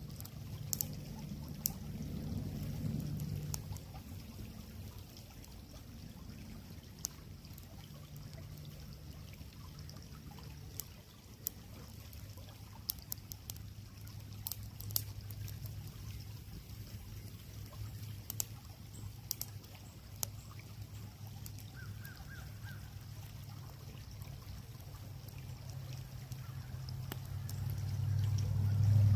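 Wood fire crackling with sharp scattered pops over the steady trickle of a creek. A low engine hum grows louder near the end.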